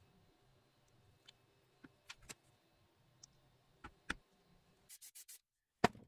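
Plastic spring clamps being handled and clipped onto a small wooden block on a workbench: scattered light clicks and taps, with a quick run of four clicks about five seconds in and one sharper click near the end.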